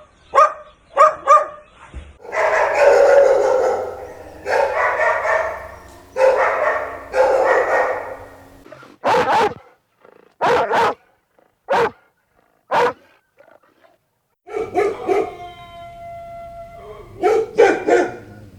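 Dogs barking in a string of separate clips: quick barks, then three long drawn-out calls lasting a second or two each, then single sharp barks with silent gaps between them, a held whining note, and a final flurry of barks.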